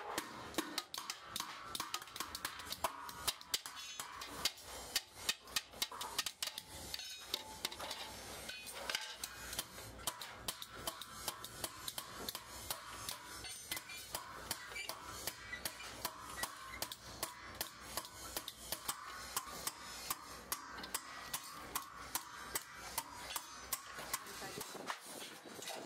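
Metal clinking and tapping in quick, irregular strikes, several a second, over a steady background hum.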